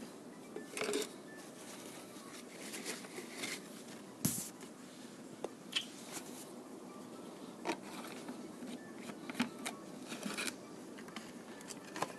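Faint handling sounds of an oil bottle and a new oil filter being worked while the filter is primed with oil: scattered light clicks and rustles, with a few sharper knocks.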